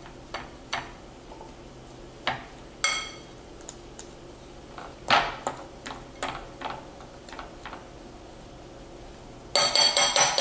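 Metal fork clinking and scraping against a glass mixing bowl while stirring dry cornbread mix to break up the clumps. Scattered taps, one ringing briefly about three seconds in, then a quick run of clinks near the end.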